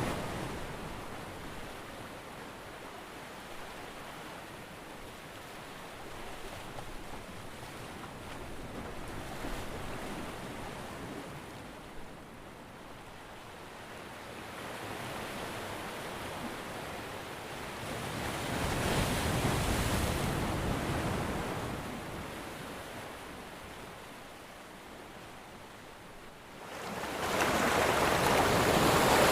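Ocean waves washing ashore, the surf swelling and ebbing in slow surges, with a louder wave breaking near the end.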